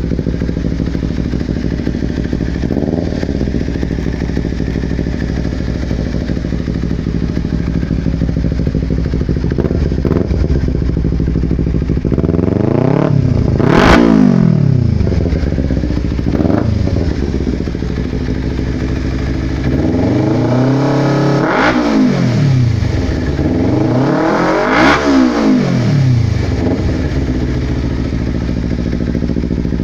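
250 cc motorcycle engine through a slip-on exhaust with the baffle removed, idling steadily and being revved by hand: small blips, one big rev about halfway through, and two more revs near the end, each rising and dropping back to idle.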